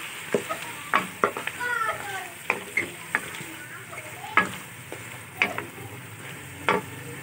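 Beef chunks frying in hot oil in a karahi, sizzling steadily, while a wooden spoon stirs them, knocking and scraping against the pan several times.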